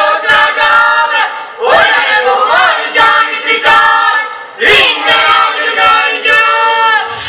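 A choir with female voices singing a song in long held phrases, a new phrase swooping up about two seconds in and again near five seconds.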